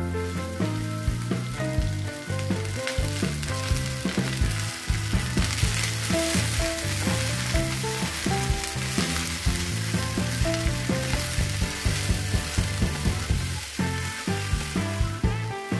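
Chopped okra sizzling in hot oil in a frying pan with garlic and curry leaves as it is tipped in and stirred with a silicone spatula; the sizzle grows stronger a few seconds in. Background music with a steady beat plays underneath.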